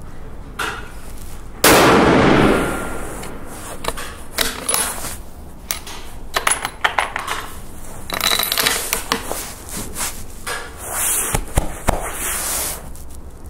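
A single rifle shot a couple of seconds in, loud and fading over about a second. It is followed by a scattering of sharp metallic clicks and clacks.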